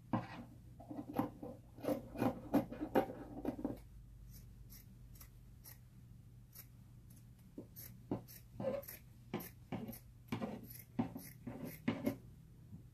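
Scissors snipping through a sheet of fabric: a run of short, irregular cuts with brief pauses between them, fairly quiet.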